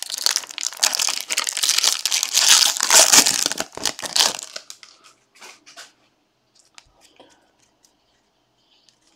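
Foil trading-card pack wrapper being torn open and crinkled, a dense crackle lasting about four and a half seconds, followed by a few faint clicks as the stack of cards is handled.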